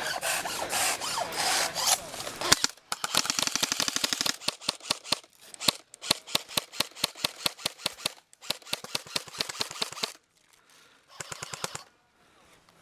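Airsoft gun firing long strings of rapid shots, about seven a second, in several bursts with brief pauses, then one short burst near the end.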